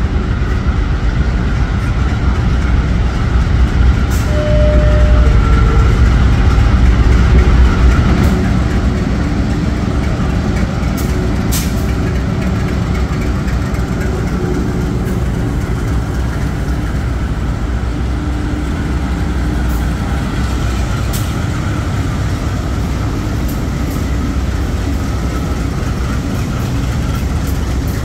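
Diesel-electric freight locomotives passing close by at slow speed, their engines giving a deep, steady rumble that is loudest a few seconds in as the lead unit draws alongside. A few sharp clicks come near the middle.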